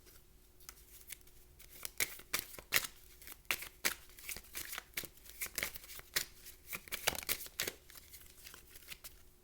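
A deck of tarot or oracle cards being shuffled and handled: many quick, irregular snaps and swishes, over a faint steady hum.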